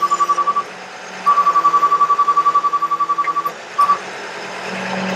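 Rapid, high-pitched beeping from the bucket truck's outrigger motion alarm as the outriggers are lowered, over a lower hum. It stops briefly just after the start, runs again for about two seconds, then gives one short blip. Near the end a steady low hum takes over.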